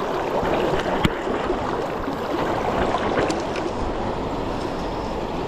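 Steady rush of a fast-flowing river running over rocks and riffles, with one sharp click about a second in.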